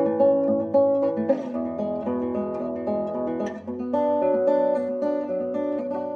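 Acoustic guitar soundtrack music, a steady run of plucked notes that grows quieter near the end.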